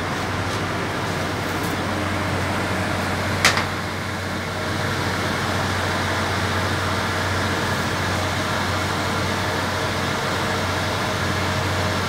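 Steady drone of a solid-fuel steam boiler plant's fans and motors running, with a constant low hum. The boiler has just been lit and is coming up to its operating mode. One sharp knock sounds about three and a half seconds in.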